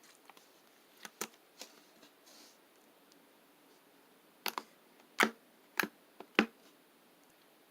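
Slime being poked and squeezed, giving sharp clicking air pops: a few faint ones about a second in, then four louder pops about half a second apart near the middle.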